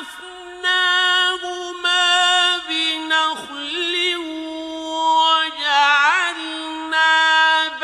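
A man chanting the Quran in a slow, melodic recitation: long held notes with quick wavering ornaments, broken by short pauses for breath.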